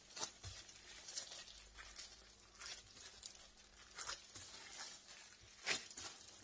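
Soft, sticky bread dough being kneaded by gloved hands on a granite countertop: faint, irregular squishing, rubbing and slapping, with one louder slap near the end.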